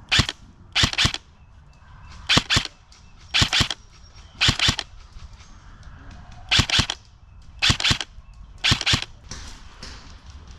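An airsoft M4-style rifle fires eight short bursts of a few shots each, in an irregular rhythm: sharp snapping shots with pauses of about half a second to two seconds between bursts.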